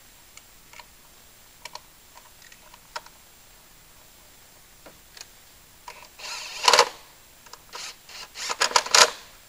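Ignition coils being swapped by hand with the engine off: scattered small plastic clicks and knocks, then two louder bouts of clattering and scraping near the end as coils and connectors are pulled and refitted.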